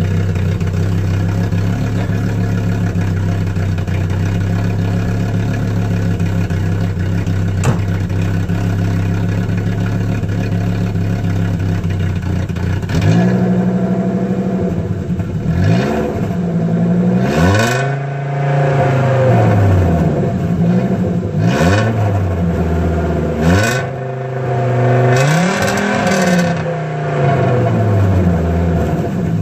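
A 1986 Audi 100 C3's 2.2-litre 10-valve inline-five idles steadily through a 2-inch straight pipe with the stock rear muffler. About 13 seconds in it is revved again and again: short blips and a few longer, higher revs, each falling back to idle.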